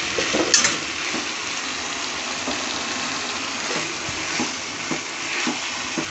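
Water poured into a hot pan of frying potatoes and peas, sizzling with a steady hiss as a ladle stirs it in.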